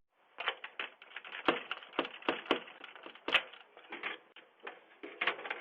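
A quick, irregular run of sharp cracks and clicks, crunching or handling noise, through a doorbell camera's microphone.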